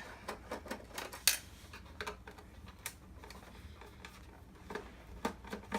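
Irregular clicks and light clatter of plastic and metal projector parts being handled during disassembly, with one sharper knock about a second in.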